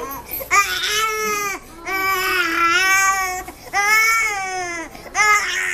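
A baby crying hard in four long, high wails with short breaths between them, upset at having her head held still while her ears are readied for piercing.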